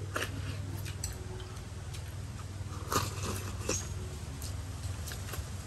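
Eating sounds: chewing, with scattered light clicks of utensils against bowls, a few louder ones about three seconds in, over a steady low hum.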